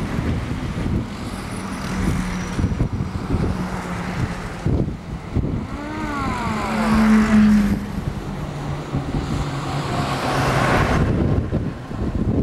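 Engines of a column of WWII-era military jeeps and army trucks driving past one after another. About six seconds in, as a truck passes close, its engine note glides down in pitch and it is at its loudest.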